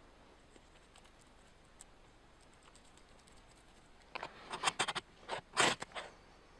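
About seven quick, sharp scraping strokes of a striker down a ferro rod, starting about four seconds in, the loudest one near the end, throwing sparks at a curl of bark tinder to light a fire.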